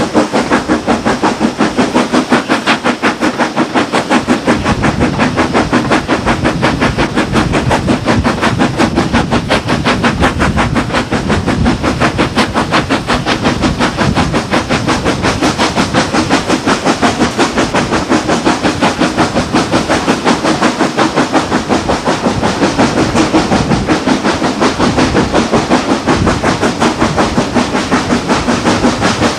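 Steam locomotive working hard, its exhaust beats coming in a rapid, even thrash, heard from an open carriage window of the train it is hauling.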